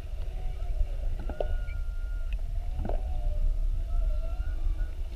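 Humpback whale song heard underwater: a few drawn-out pitched cries, one held high tone about a second in and another near the end, with wavering lower moans and a short upswept call, over a steady low rumble of water noise.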